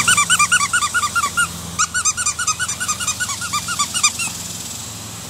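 Dog's squeaky toy being squeezed fast, giving quick short high squeaks about eight a second, in two bursts with a short break about a second and a half in.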